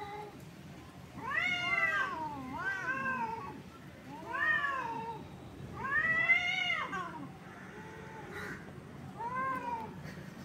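Two cats yowling at each other in a face-to-face standoff: about five long, drawn-out calls that rise and then fall in pitch, traded back and forth with short pauses between them.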